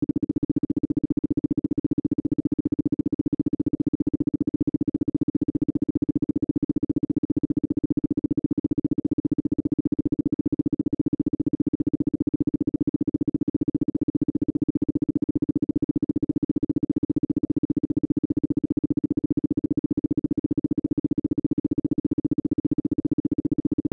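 Isochronic tone for brainwave entrainment: a single steady low-pitched tone switched on and off in rapid, even pulses, many times a second.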